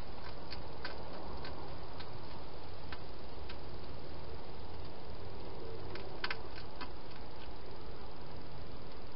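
Hedgehog eating from a bowl in a plastic feeding box: irregular sharp clicks of chewing and of the bowl being nosed, with a quick cluster about six seconds in, over a steady hiss.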